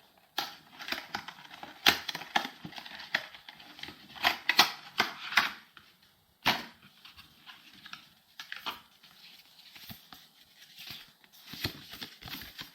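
Small microphone box and its packaging being opened and handled by hand: irregular rustling and crinkling with many short clicks and taps, the busiest stretch around the middle.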